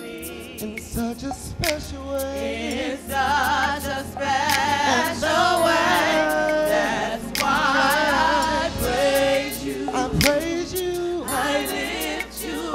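Gospel praise team and choir singing long, wavering held notes.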